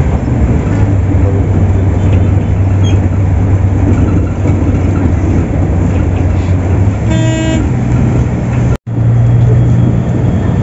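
Volvo 8400 city bus running on the road, heard from on board: a steady low engine drone over road noise. A vehicle horn honks once, for about half a second, two-thirds of the way through.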